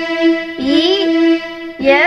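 Yamaha electronic keyboard played one note at a time: sustained notes of a slow melody, with a new note about every second.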